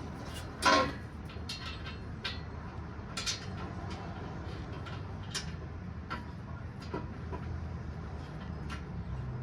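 Scattered metal clinks and knocks of tools and exhaust parts being handled under the hood, with one louder clank about a second in, over a steady low hum.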